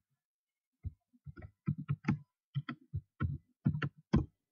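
Typing on a computer keyboard: about a dozen keystrokes at an uneven pace as a password is entered.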